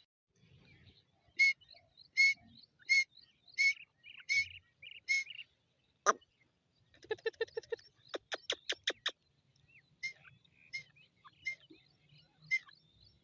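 Grey francolin calling: a run of six loud, sharp, ringing notes about 0.7 s apart. These are followed by a sharp snap, a quick rattling run of notes and six fast sharp clicks, then softer scattered chirps.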